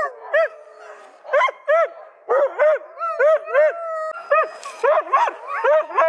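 Harnessed sled huskies yipping and barking in quick succession. A couple of drawn-out whines sound between the yips.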